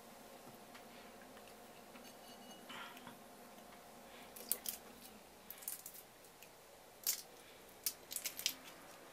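Boiled shrimp being peeled by hand: sharp little cracks and snaps of the shell, in four quick clusters starting about halfway through.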